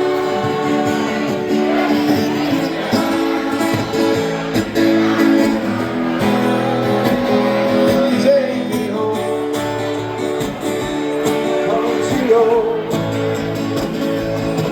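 Acoustic guitar strumming a country song, with singing in places.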